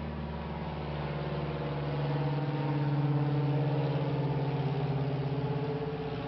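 Aircraft engine drone from a plane passing overhead: a steady hum that grows louder to a peak about three seconds in, then eases a little, with a fast pulsing beat.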